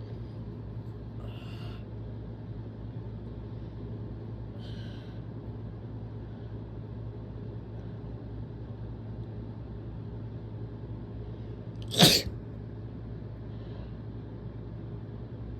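A person sneezing once, hard and sudden, about twelve seconds in: a strong sneeze from someone who is sick. Two faint breathy sounds come earlier.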